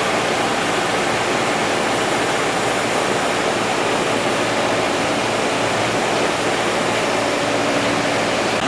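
Construction-site generator running steadily, a loud, even noise with no breaks; it powers a drilling rig boring holes for a retaining wall.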